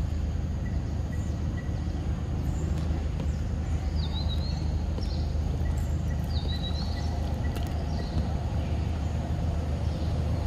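Outdoor background noise: a steady low rumble, with a few short high chirps about four and six and a half seconds in.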